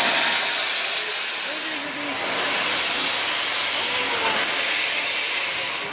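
4-8-2 steam locomotive venting steam from low at its front by the cylinders, a loud steady hiss that eases slightly about two seconds in.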